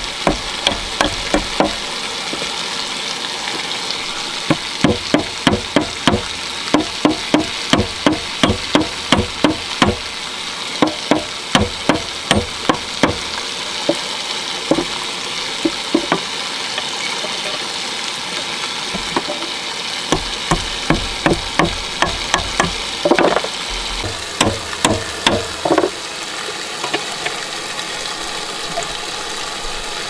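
Runs of sharp, rapid knocks, about three a second, with pauses between runs, over a steady hiss.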